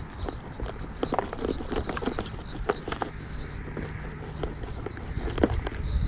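A knife cutting up a bluegill for cut bait on a plastic bag: irregular clicks and crunches, over a low rumble.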